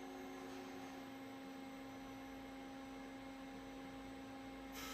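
Steady machine hum of a Doosan Lynx 220LMA CNC turning center running with its spindle and live tool at rest. Just before the end a higher tone and more hiss set in.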